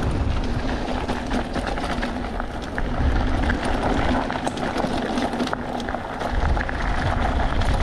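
Wind rumbling on the microphone over the road and tyre noise of a moving e-bike, with scattered small rattles and knocks.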